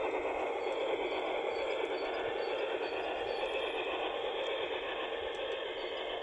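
Bachmann garden-scale model Mallet steam locomotive running along the track, a steady rushing noise with no distinct beats.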